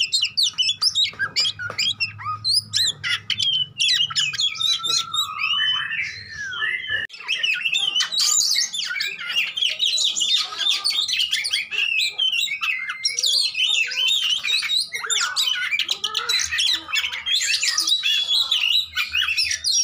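Oriental magpie-robin singing a fast, nearly unbroken stream of varied whistled and chirped notes, with only a brief pause about seven seconds in.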